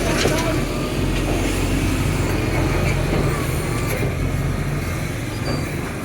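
Heavy vehicle engine running, a steady low hum with a little traffic noise over it.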